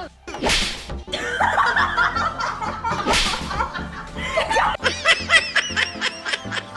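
Comedy soundtrack of background music with dubbed-in sound effects: two short whooshing hits, about half a second and three seconds in, and a run of snickering laughter near the end.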